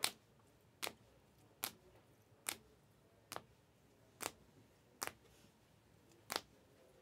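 Stack of Panini Optic basketball cards being flipped through one at a time, each card snapped to the back of the stack with a sharp click. About eight clicks, roughly one every 0.8 s.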